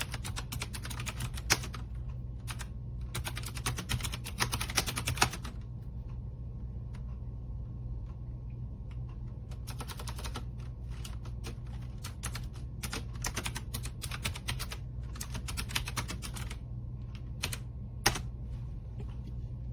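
Typing on an AULA F2088 mechanical keyboard with clicky blue switches: quick runs of sharp keystroke clicks, with a pause of a few seconds in the middle. A steady low hum sits underneath.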